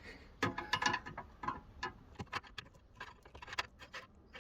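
Irregular light clicks and taps of hand tools on metal as a bent car-body part is worked, thickest in the first second or so.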